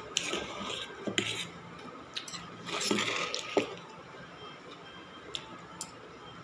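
Steel spoon and fork clinking and scraping against a stainless steel bowl and plate as noodles are scooped up: scattered sharp clicks, with a busier stretch of scraping about three seconds in.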